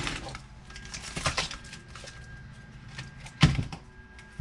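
Handling sounds on a workbench as a sheet of foil-backed sound-deadening material is laid out and measured with a tape measure: a light knock about a second in and a sharper, louder knock about three and a half seconds in.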